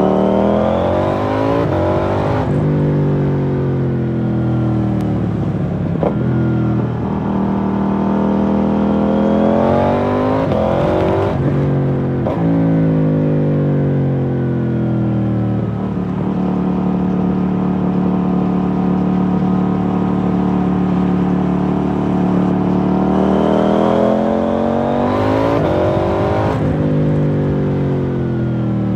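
KTM 790 Duke's 799 cc parallel-twin engine through an IXRace MK2 aftermarket exhaust, revved hard three times. Each time the pitch rises steeply, is cut off suddenly as the throttle closes, and then winds down. There is a steady stretch at even revs in the middle.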